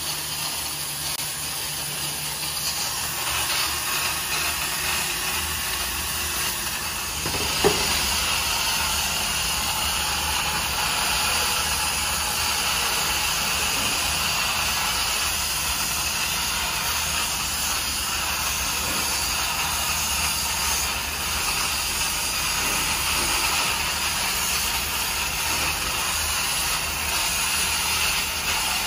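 Steady loud hiss of steam from a steam-heated stainless cooking kettle of boiling water, over a low hum. A single sharp knock comes about eight seconds in.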